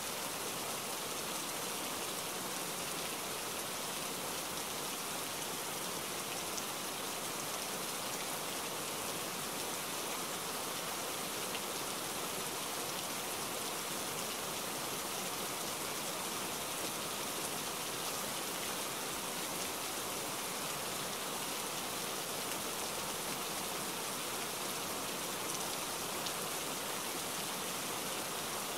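Steady rain falling on wet pavement: an even hiss with scattered faint drop ticks.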